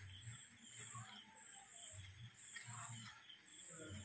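Faint cricket chirping in a steady, even pulse, about two chirps a second, with soft low thuds underneath.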